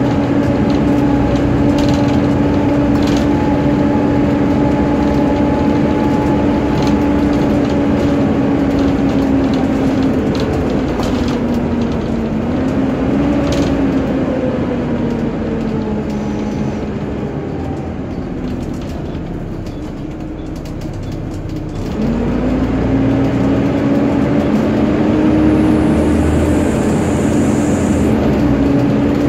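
Volvo B7TL double-decker bus from the upper deck, its cooling fan whining like a hoover over the running engine, with light interior rattles. The whine wavers and sinks, fading lower for several seconds past the middle, then rises again sharply about three-quarters through.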